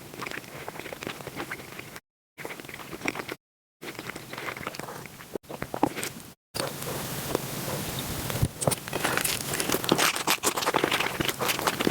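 Close-miked eating sounds sped up to five times speed: rapid crunching, chewing and wet smacking clicks, broken into short clips by three brief dead silences. The clicks grow denser and louder from about six and a half seconds in.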